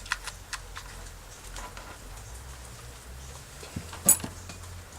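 Light clicks and small knocks from working a hot glue gun into a pen barrel, with one sharp, louder click about four seconds in.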